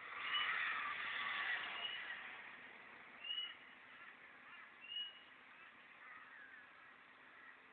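Wild birds calling, recorded through a low-quality camera microphone. A louder, rough stretch of calls fills the first two seconds or so, then short high chirps repeat about every second and a half.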